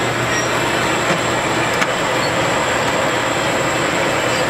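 Rod reconditioning honing machine running, its oiled mandrel honing out the brass wrist-pin bushing of a Harley-Davidson connecting rod as the rod is worked back and forth on it: a steady, even grinding hiss with a low hum and a faint high whine.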